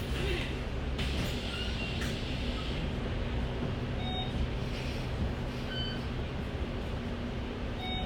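Bus engine and road rumble heard from inside the passenger cabin, running steadily with a low hum. A few short high beeps sound about four, six and eight seconds in.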